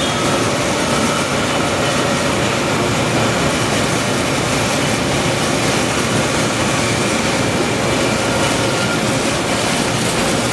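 A Fellows 36-6 CNC gear shaper running under power: a loud, steady mechanical noise in a factory.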